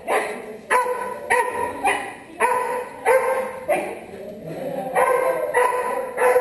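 A 17-week-old puppy barking over and over, a steady string of sharp barks at nearly two a second.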